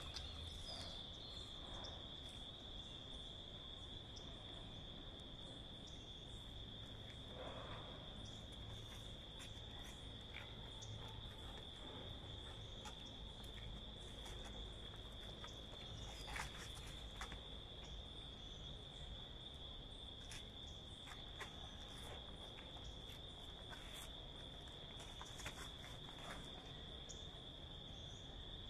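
Insects singing in one steady, unbroken high-pitched tone, with a few faint scuffs now and then.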